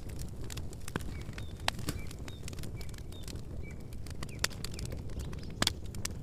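Wood campfire crackling, with irregular sharp snaps and pops over a low steady rumble; the loudest pop comes about five and a half seconds in. A few short high bird chirps sound in the first half.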